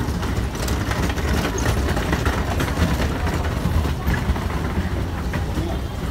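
Busy street ambience at an outdoor food stall: a steady low rumble with people talking in the background and scattered light clicks.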